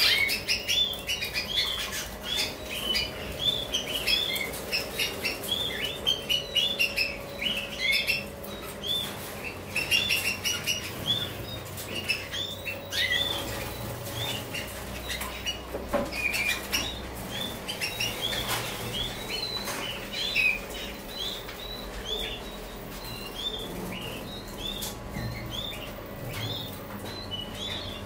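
A roomful of canaries chirping at once: many short, high call notes, several a second and overlapping, busiest in the first half.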